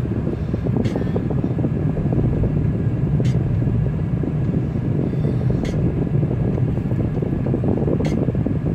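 Steady low rumble of a car driving at road speed, heard from inside the cabin. A faint click comes about every two and a half seconds.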